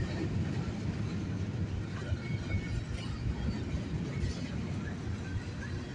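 Covered hopper cars of a freight train rolling past close by: a steady low noise of steel wheels on the rails, with irregular clicks and clatter from the wheels and couplings.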